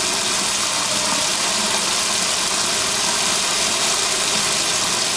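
Sink faucet opened a quarter turn, running a steady thin stream that splashes into the basin over a hand-held probe.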